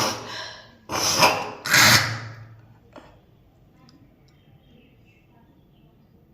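A woman coughing and hawking up thick phlegm from a cold: three harsh, forceful throat bursts in quick succession, the last with a low rasp, followed by a short click about three seconds in.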